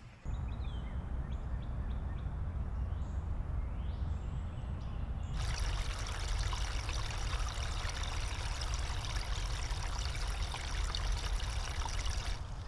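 Small woodland stream of water trickling and splashing over a low drop of leaves and twigs, steady throughout, turning brighter and fuller about five seconds in.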